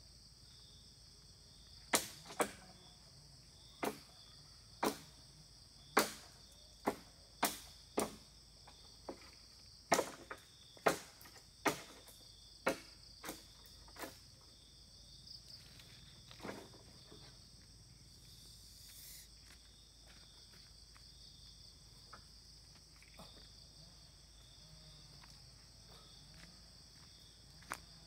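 A run of sharp strikes, roughly one a second for about twelve seconds and then a few fainter ones, over a steady high drone of forest insects.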